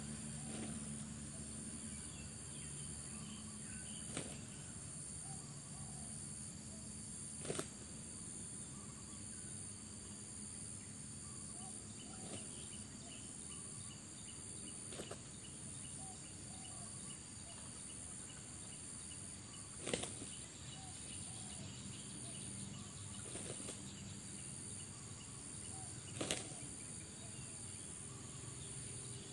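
Steady high-pitched drone of an insect chorus, broken by about six short, sharp sounds scattered through it.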